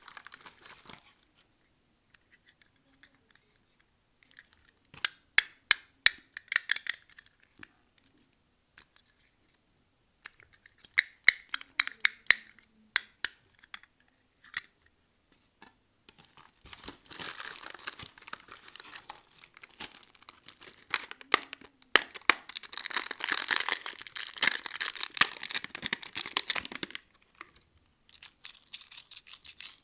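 Plastic surprise-egg packaging being torn open and crinkled by hand. Clusters of sharp clicks and crackles come first, then two longer stretches of crinkling in the second half.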